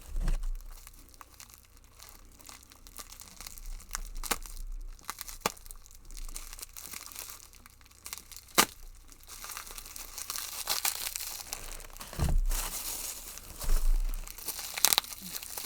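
Packing material crinkling and tearing as wrapped items are pulled from a box, with a few sharp clicks and low knocks of things being handled.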